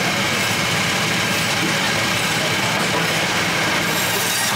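Electric band saw running steadily while pieces of fish are pushed through its blade, a constant mechanical hum and whir.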